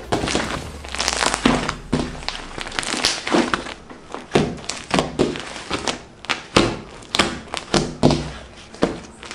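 Crunchy slime being pressed and kneaded by hand, giving a string of irregular crackling pops and squishes, a few a second.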